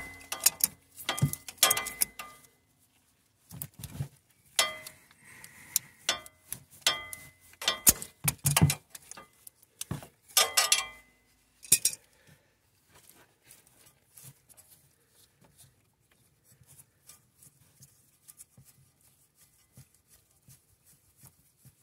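Hand tools clinking and knocking on metal while the transmission filter is worked loose. There are many sharp clicks in the first half, then only faint occasional ticks.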